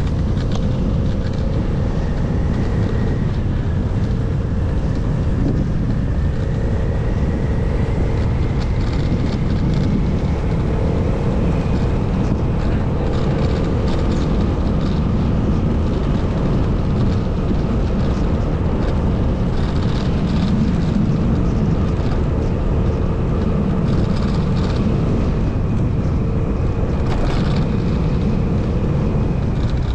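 Motorcycle engine running at a steady riding speed, with wind rushing over the microphone.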